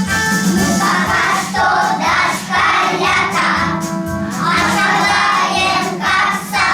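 A group of young children singing together over a recorded backing track with a steady beat; the singing comes in about a second in.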